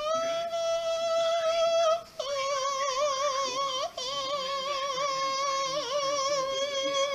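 A high, singing-like note held for several seconds. It is steady at first, then wavers quickly from about two seconds in, with two short breaks.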